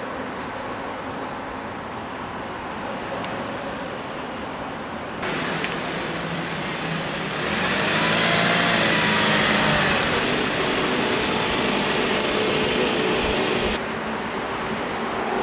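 Road traffic noise: a steady wash of passing vehicles, changing abruptly a couple of times and loudest for a few seconds in the middle.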